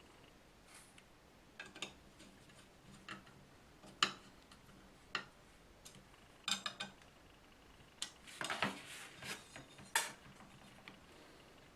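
Small metal parts or tools being handled on a hard work surface: scattered clinks and knocks, with a longer clatter about eight seconds in.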